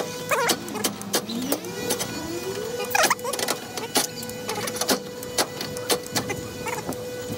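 Cordless drill motor spinning up, rising in pitch over about a second and a half, then running at a steady pitch while drilling holes, with many sharp clicks and knocks throughout.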